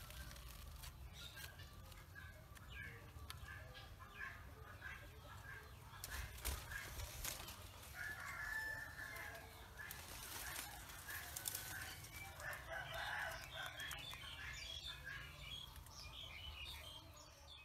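Faint chickens clucking, with a rooster crowing.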